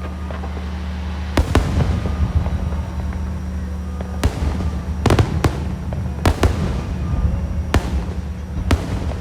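Aerial fireworks bursting: about ten sharp bangs at irregular intervals, some in quick pairs, each followed by crackling, over a steady low rumble.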